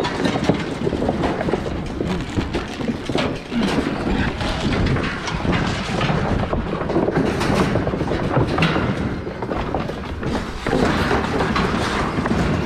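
Continuous metal clatter and rattling from a wire-panel hog trap and livestock trailer as a crowd of hogs shoves and moves inside, with many short knocks.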